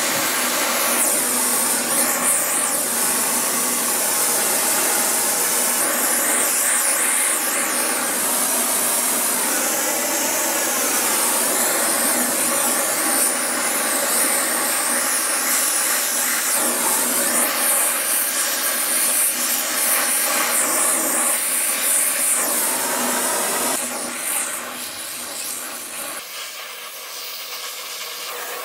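Gas torch flame hissing steadily as it heats a cast bearing hub for a braze repair. It drops to a softer hiss near the end.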